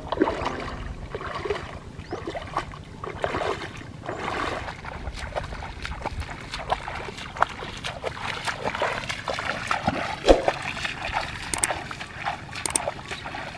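Water sloshing and splashing as legs wade through knee-deep water, with scattered sharp clicks and a louder knock about ten seconds in.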